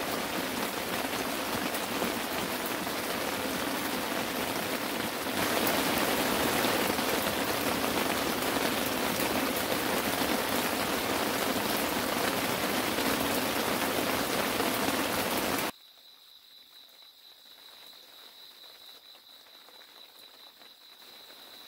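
Heavy rain falling steadily, getting heavier about five seconds in. It cuts off abruptly after about fifteen seconds, leaving a much quieter background with a faint, high, steady tone.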